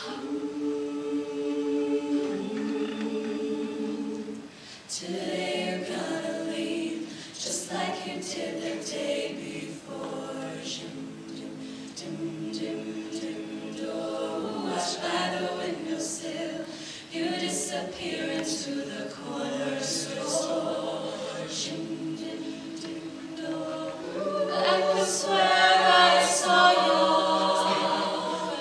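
All-female a cappella group singing in close harmony, starting from quiet with held chords. The full group comes in about five seconds in, and the singing swells louder near the end.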